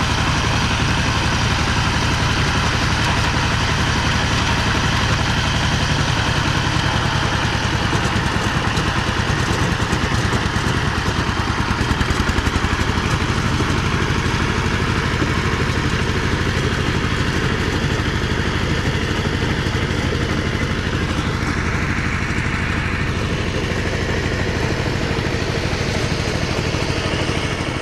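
Two-wheel power tiller's single-cylinder diesel engine running steadily with a fast, even beat as it ploughs a flooded rice paddy.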